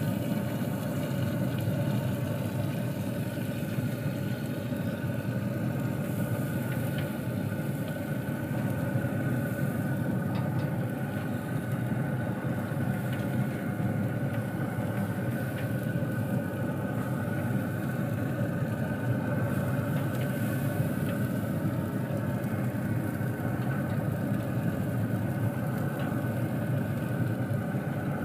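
A steady machine hum, even and unchanging, with a few faint clicks as oyster shells are set down on a pellet grill's metal grate.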